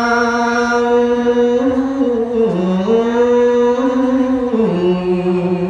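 A man's solo voice chanting Khmer smot, the sung Buddhist verse recitation, in long drawn-out held notes. The pitch dips and rises in slow steps, then settles onto a lower long note about three-quarters of the way through.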